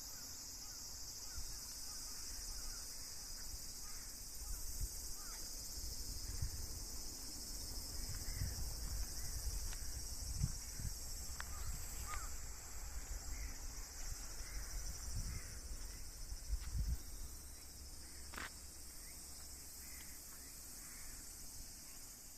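A steady, high-pitched chorus of summer insects. Wind gusts rumble on the microphone through the middle.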